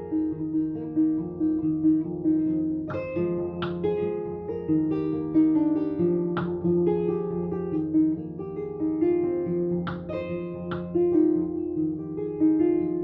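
Kora, the West African 21-string harp-lute, played solo: a steady stream of plucked notes cycling in a repeating pattern over a bass line, with a few sharper, brighter plucks standing out.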